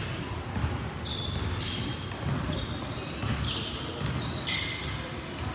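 Basketball game play on a gym floor: a ball bouncing in irregular thumps and sneakers squeaking in short high chirps, over indistinct voices.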